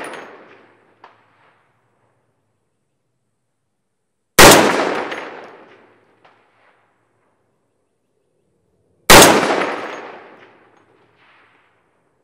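.338 Lapua Magnum rifle (DRD Tactical Kivaari) firing twice, a few seconds apart, each loud report fading out over about a second and a half. About two seconds after each shot comes a faint distant clang of the bullet hitting a steel target at 500 yards. It opens on the fading tail of an earlier shot and its faint clang.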